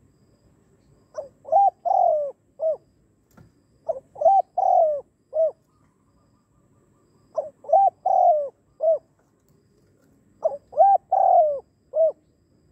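Spotted dove cooing: four song phrases about three seconds apart. Each phrase is four coos, the third one drawn out longer than the rest.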